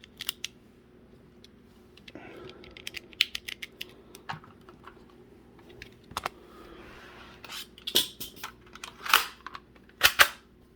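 Plastic clicks and snaps of foam-dart shells being loaded into the magazine of a toy Glock foam blaster, with a couple of soft sliding scrapes. A few louder plastic clacks come near the end.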